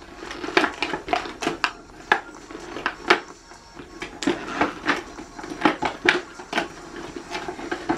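Clear plastic packaging crinkling and crackling as it is handled and its tape is worked loose, with irregular sharp clicks.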